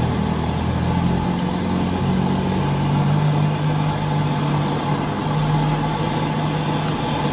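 Steady hum of an idling engine, over the hiss of cireng (fried tapioca dough) sizzling in a wok of hot oil.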